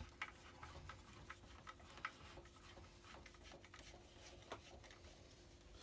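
Faint, irregular small clicks from a hand screwdriver turning a screw into the bench grinder's metal housing, roughly two or three a second, over a low steady hum.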